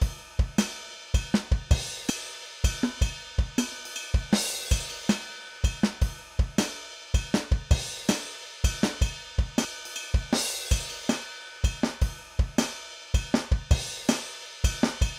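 Multi-sampled acoustic drum kit in Groove Agent 5, played by its style player: a steady groove of kick drum, snare and cymbal hits.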